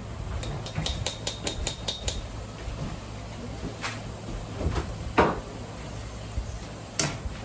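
Kitchen clatter of utensils and cookware: a quick run of about eight light taps in the first two seconds, then a few separate louder knocks, the loudest about five seconds in.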